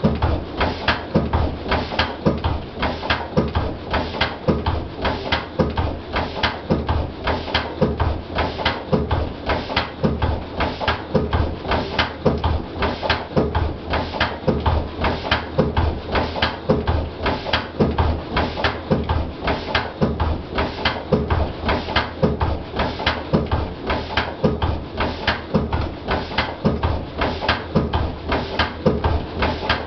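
Lister CS single-cylinder, slow-speed stationary diesel engine running steadily, with an even, rapid beat of exhaust pulses and mechanical knocking over a low hum.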